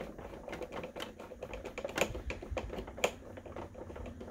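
Hand screwdriver turning a metal screw into the plastic hull of a 1984 Kenner Imperial Shuttle toy, snugging it down: a rapid, irregular run of small clicks and ticks, with a couple of sharper clicks about two and three seconds in.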